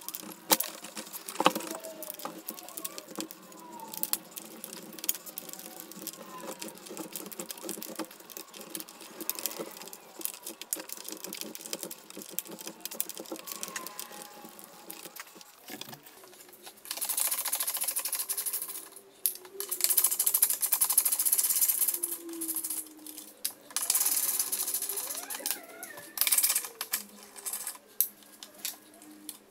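Hand tools clicking and rattling against the plastic and metal fittings of a car's headlamp assembly during removal. In the second half come several loud scraping stretches, each lasting a second or more.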